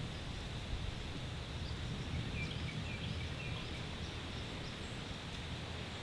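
Steady outdoor background noise with a low rumble, and a short series of faint bird chirps a little past the middle.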